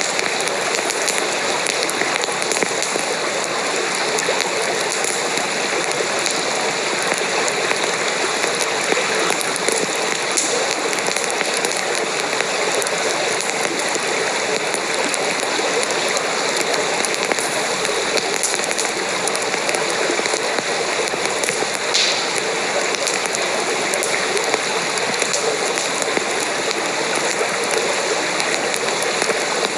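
Campfire burning with a steady hiss and scattered sharp pops and crackles, one louder pop about two-thirds of the way through.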